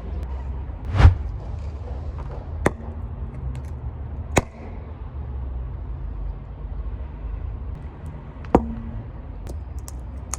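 Car rolling slowly with a low steady rumble while objects crack under its tyres: a loud crack with a heavy thud about a second in, then single sharp snaps a few seconds apart.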